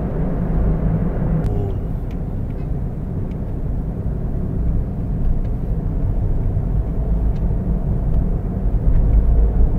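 Steady low rumble of engine and tyre noise inside a car driving along a highway, growing a little louder near the end.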